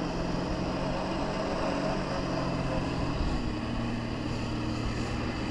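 Personal watercraft engine running steadily at high power, pumping water up the hose to hold a flyboard rider aloft.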